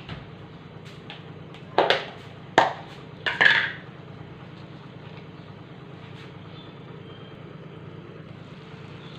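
Covered pan of vegetables cooking on a gas stove, with a steady low hum throughout. Three short, loud clatters come between about two and three and a half seconds in.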